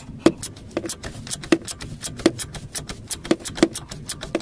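Ratchet wrench clicking in short strokes, a few sharp metallic clicks a second, as the nut on a stabilizer link is worked loose.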